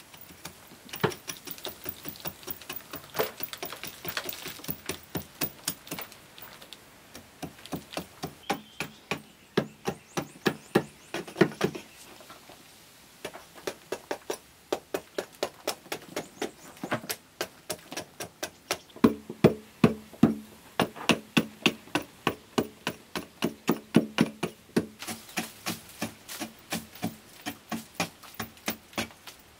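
Hand tool chipping at a carved earthen wall: runs of sharp tapping strikes, about four a second, broken by short pauses.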